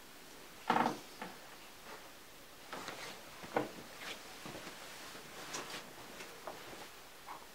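Soft footsteps and small knocks and scuffs of a person moving about a small room. The loudest is a short knock with a brief ring about a second in.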